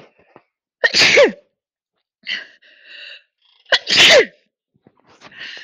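A woman sneezing twice, about three seconds apart, each sneeze sharp and loud with a falling pitch at its end, with breathing between and after them.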